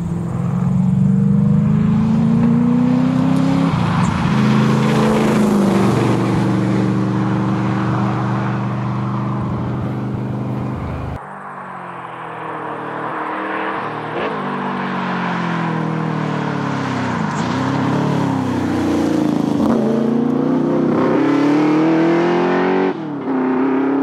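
A Holden VH Commodore SS Group 3's V8 engine running hard at speed, the pitch climbing through the revs and dropping at each gear change. About eleven seconds in the sound changes abruptly, and the engine is heard again rising and falling as the car lifts off and accelerates past.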